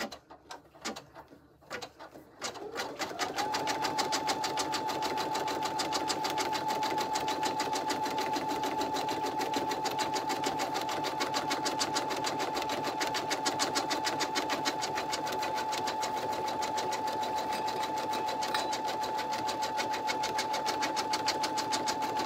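Home embroidery machine starting to stitch: a few light taps, then the motor speeds up over about a second and settles into a steady fast run, the needle tapping rapidly and evenly, as it sews the final pass that stitches the felt backing onto an in-the-hoop piece.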